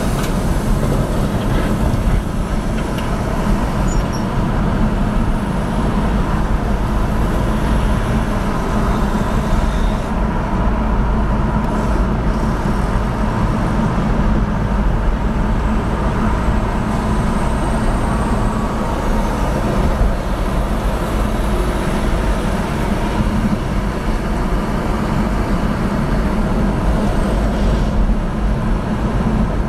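Steady road and engine noise from inside a moving car, with a constant low rumble from tyres and engine and the wash of traffic around it.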